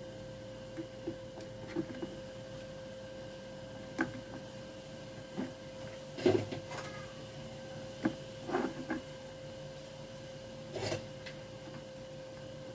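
Scattered small clicks, taps and scrapes of hand tools working on a home theatre amplifier circuit board while the amplifier IC is desoldered, the loudest knock about six seconds in. A steady faint tone runs underneath.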